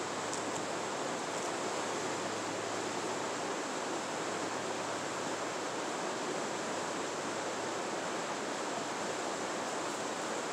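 Fast-flowing French Broad River rushing over a choppy, riffled stretch: a steady, even hiss of moving water.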